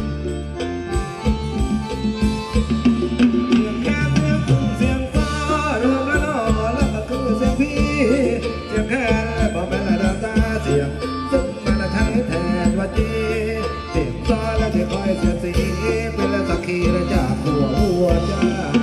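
Live band playing upbeat Thai ramwong dance music, with a steady drum beat under a wavering lead melody that comes in about four seconds in.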